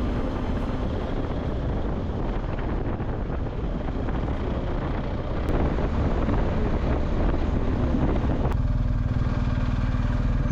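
Motorcycle riding, its engine mixed with heavy wind noise on the microphone. About eight and a half seconds in the wind drops away and the engine settles to a steady low running note.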